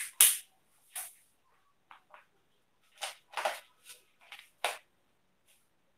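Dry-erase marker writing on a whiteboard: a string of short, faint scratchy strokes, one or two early and then a quicker run of about six strokes in the second half.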